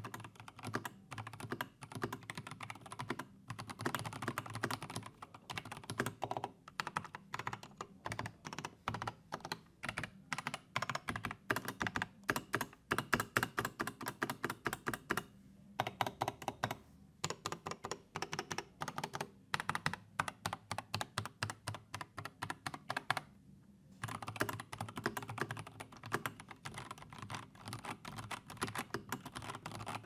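Typing on a Mikit MK72 mechanical keyboard with TTC Gold Brown Pro tactile switches and ABS keycaps: a fast, steady run of keystroke clacks, with two brief pauses, about halfway and about three quarters of the way through.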